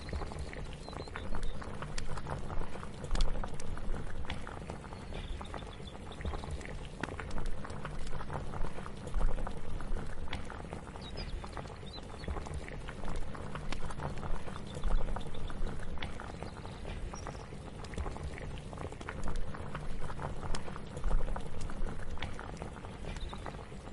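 Liquid bubbling in a cooking pot, a continuous dense patter of small pops and clicks over a low rumble that swells and eases every few seconds.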